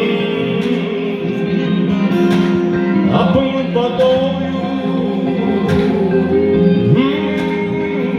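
Pop song music with guitar, held chords and sliding notes, without clear lyrics.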